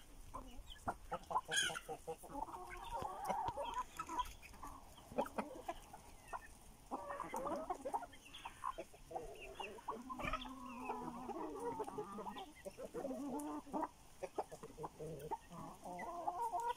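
A flock of chickens clucking, many short calls overlapping one another.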